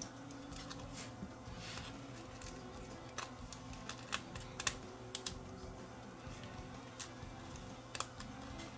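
Light, irregular clicks and taps of small hand tools and parts as a Sony PCM-R300 DAT deck is taken apart, about a dozen over several seconds.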